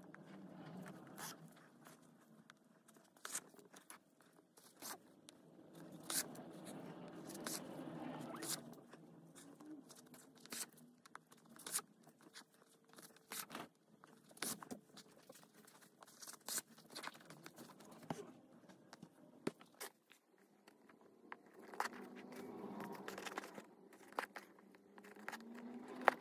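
Hand-stitching leather: needle and thread pulled through the leather, with the leather and fur rustling as they are handled. Faint, with many small sharp clicks scattered throughout.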